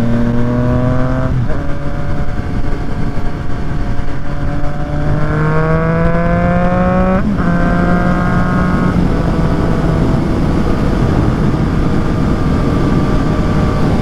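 Triumph Street Triple 765 RS inline three-cylinder engine through an aftermarket Yoshimura exhaust, heard while riding: the engine note climbs under throttle and drops sharply at upshifts about a second in and again about halfway through, after a hard pull in between. It then settles into a steadier note under rushing wind noise.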